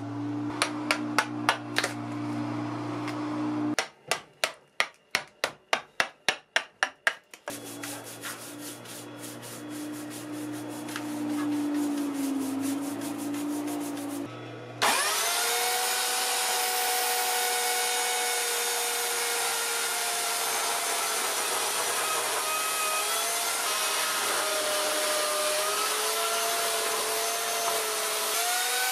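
Bark being knocked and scraped off a log with a hand tool: sharp knocks, one run of about three a second, then scraping. About halfway, a handheld electric power tool starts with a rising whine and runs steadily.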